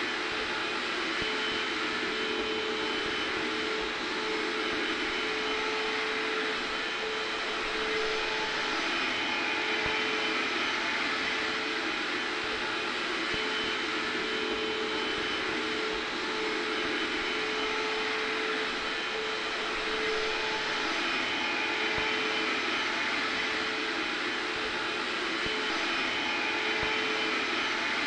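Hair dryer blowing continuously, mixed with a vacuum cleaner running in the background: a steady rush of air with a constant motor tone, unchanging throughout.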